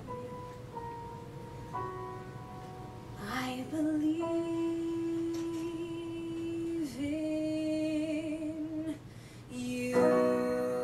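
A woman singing a musical theatre ballad live with piano accompaniment. She sustains one long note for about five seconds, ending in vibrato, and after a brief lull the piano comes in with fuller chords near the end.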